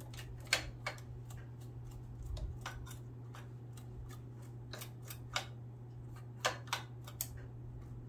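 Irregular small clicks and taps of hands and tools working on a Singer sewing machine's opened needle-plate area during cleaning. The clicks are loudest about half a second in and around five and a half to six and a half seconds in, over a low steady hum.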